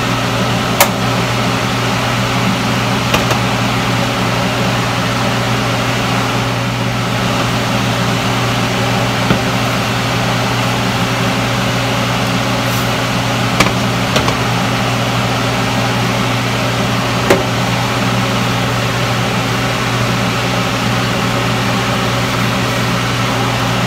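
Steady mechanical fan hum with a low drone, with a few light clicks and taps scattered through it as the spilled coconut cream is wiped off the stovetop.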